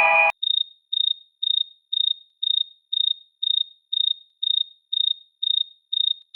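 High-pitched electronic alarm beeping, a single steady tone repeating about twice a second, like a smoke or fire alarm. It starts right after a chiming musical chord cuts off at the very beginning.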